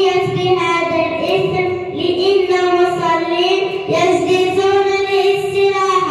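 A young girl singing into a microphone, holding long drawn-out notes one after another.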